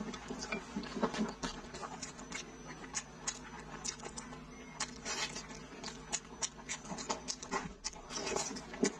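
Close-up mouth sounds of someone eating braised pig's trotter: wet chewing and lip smacking, with many short, irregular smacks and clicks and audible breathing. A denser, louder stretch of biting comes near the end.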